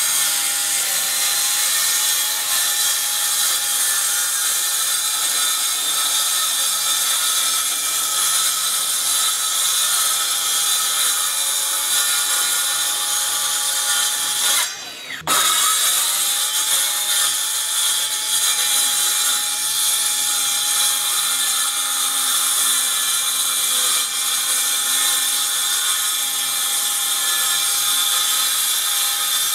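Kobalt 24V brushless cordless circular saw with a 6.5-inch blade running under load, cross-cutting 3/4 inch CDX plywood with a steady high whine and cutting noise. About halfway it stops briefly, then spins back up and keeps cutting.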